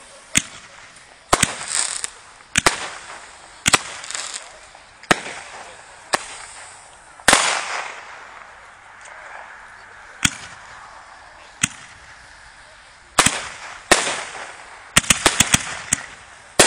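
Consumer 1.4G fireworks going off: sharp bangs about a second apart, some followed by a short crackle. There is a lull midway, then a rapid run of bangs near the end.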